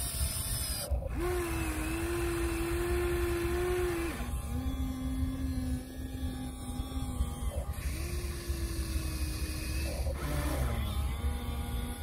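Huina RC excavator's electric motors whining as the boom lifts and swings a bucket of sand over to the dump truck. The whine comes in stretches of a few seconds, each at a steady pitch that shifts from one move to the next, with a brief falling glide near the end.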